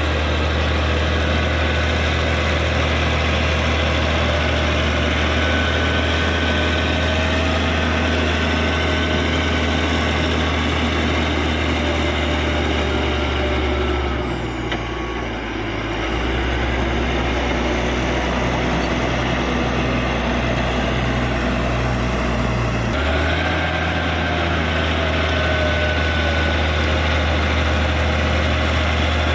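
Caterpillar D6G bulldozer's diesel engine running steadily. Its note drops lower about halfway through for several seconds, then comes back up.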